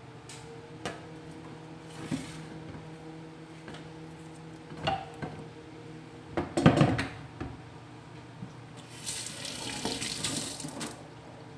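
Kitchen handling sounds: scattered knocks and clatters as a round wooden cutting board and other things are moved on the counter, the loudest a clatter about six and a half seconds in. Then water runs from a tap for about two seconds near the end.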